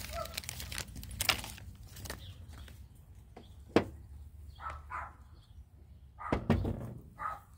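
Scattered sharp clicks and knocks of small screws and hooks being handled against wood, the loudest a little before the middle, with a few short, soft animal calls in the second half.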